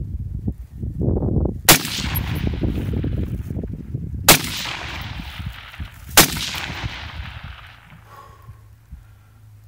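Three AR-15 rifle shots, about two and a half and then two seconds apart, each followed by a long rolling echo.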